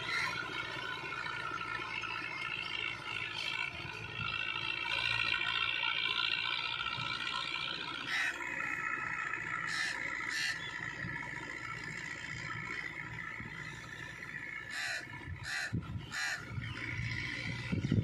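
New Holland Fiat 640 tractor's diesel engine running under load as it pulls an 18-disc harrow through a dry field, moving away. Crows caw several times in the second half.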